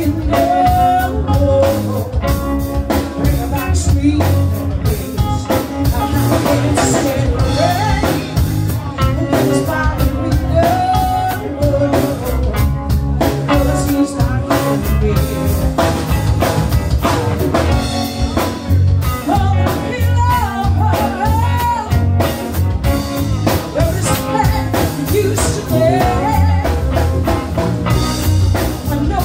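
Live band playing a slow blues-soul song: a woman singing over electric guitar, bass guitar and drum kit.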